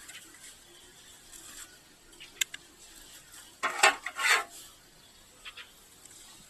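Dry leaf litter crunching and rustling underfoot: a sharp click about two and a half seconds in, then a louder burst of crunching around four seconds in, and a couple of faint ticks later.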